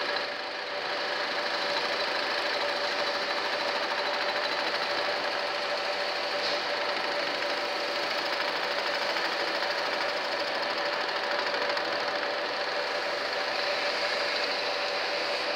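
Jig boring machine running steadily as its cutter faces down the crown of an aluminium OM611 diesel piston, an even machining whir with a constant hum-like tone.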